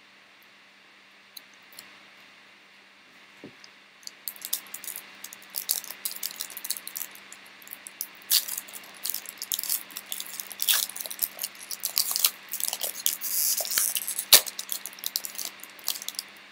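A foil trading-card pack being torn open and its wrapper crinkled, a dense run of sharp crackles that starts about four seconds in, with one loud snap near the end.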